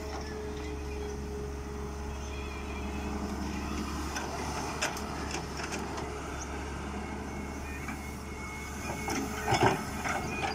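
Volvo wheeled excavator's diesel engine running steadily under working load. Loose clatter comes about halfway through as the bucket dumps soil and stones into a tractor trolley. A louder burst of knocks and scraping near the end comes as the bucket digs back into stony ground.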